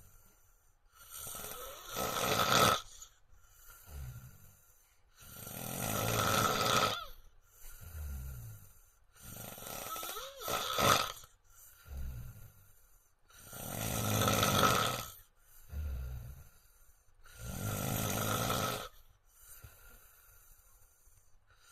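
A man snoring loudly in his sleep: five loud, noisy snores about every four seconds, each followed by a shorter, lower, quieter breath.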